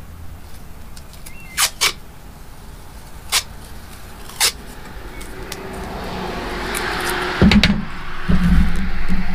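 A few sharp clicks, then a car going by on a nearby road, its noise swelling over the last few seconds.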